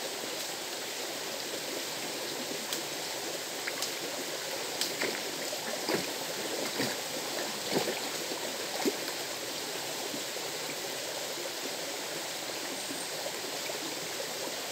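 River water rushing steadily, with a few short, sharp sounds between about three and nine seconds in.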